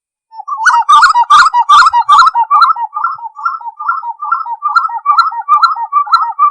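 Spot-winged wood-quail (uru) singing: a rapid rollicking run of repeated two-note phrases, about two and a half a second, loudest in the first couple of seconds and cut off abruptly at the end.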